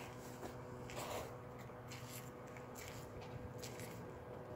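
Faint railway-station platform ambience: a steady low hum with scattered light clicks and rustles, while a train is still far off down the line.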